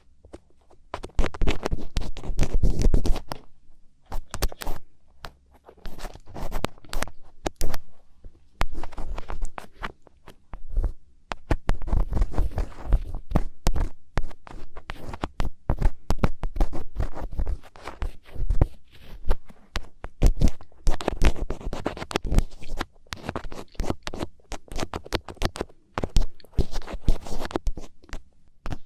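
Thin ear picks scratching and scraping inside an ear close to the microphone, in irregular strokes with sharp clicks.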